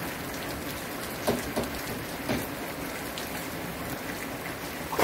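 Steady rain falling, with a few faint short knocks in the first half.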